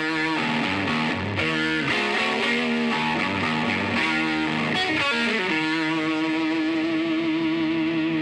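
Outro music led by a distorted electric guitar, moving between notes and then settling on one held, wavering note for the last few seconds.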